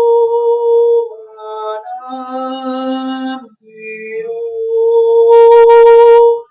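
Music: long, held, wordless sung notes of 'light language' singing, moving between pitches, with a brief pause about three and a half seconds in.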